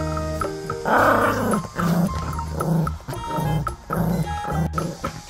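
Puppy growling in repeated short bursts while tugging a plush toy, over background music.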